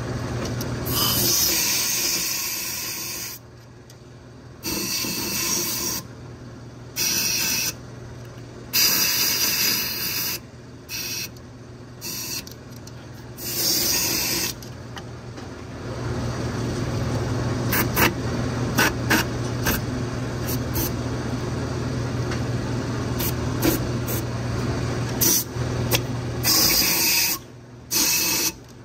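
Repeated hissing blasts of compressed air from a blow gun, blowing debris out of the empty injector bores in a 6.7 Powerstroke diesel's cylinder head. The blasts come in bursts of one to two seconds, followed by a longer steadier stretch over a low hum, with a few sharp clicks.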